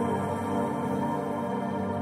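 Background music: calm ambient, new-age style, with sustained held tones.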